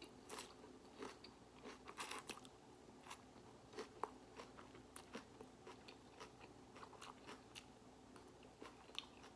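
Salad being chewed close to the microphone: faint, scattered crunches and wet clicks of lettuce between the teeth, a few a second, over a faint steady hum.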